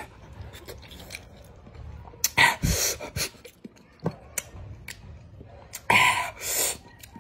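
A man chewing raw iba (kamias, bilimbi), a very sour fruit, with short wet crunching clicks. There are two loud breathy gasps, about two and a half and six seconds in, as he reacts to the sourness.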